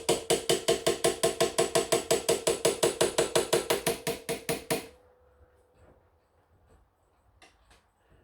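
A small hammer tapping quickly and evenly on a scraper blade wedged under the top of a slate clock case, about six or seven taps a second with a ringing note, stopping about five seconds in. The blade is being driven into the joint to prise the case apart.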